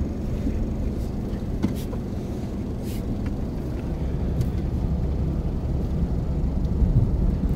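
Steady low rumble of a car's engine and tyres, heard from inside the cabin while driving, with a few faint clicks.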